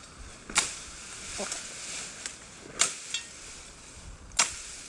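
Billhook chopping shoots off a cut olive branch: three sharp blows roughly two seconds apart, with lighter knocks in between and the leafy branches rustling.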